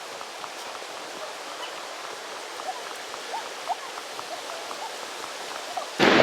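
Steady rushing of a waterfall and its stream, with a few faint short chirps of birds over it. A much louder sound cuts in right at the end.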